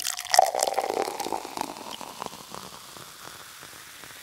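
Intro sound effect of crackling, fizzing liquid, with a faint ringing tone at the start. The dense crackle thins over the first three seconds into a steady hiss.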